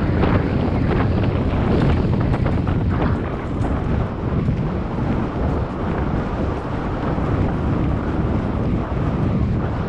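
Wind buffeting a GoPro's microphone during a bike ride, a loud steady rushing with many small rattling knocks through it.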